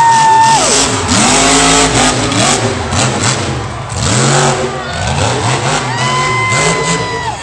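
Monster truck's engine revving up and down again and again. A steady high tone sounds briefly near the start and again for about a second near the end.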